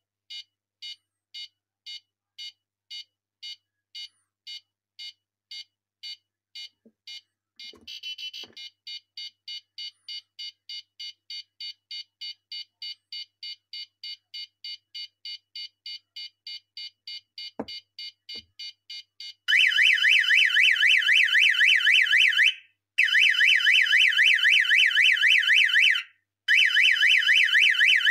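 Electronic buzzer of a homemade airsoft game box beeping about twice a second, then about four times a second as the capture countdown nears zero. From about two thirds of the way in it sounds a loud warbling alarm in three bursts of about three seconds each: time is up and the game is over.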